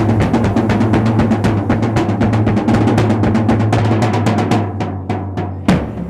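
Drum kit played fast: a dense run of rapid snare and tom strokes, about ten a second, over ringing bass drum, thinning out near the end before one loud single hit.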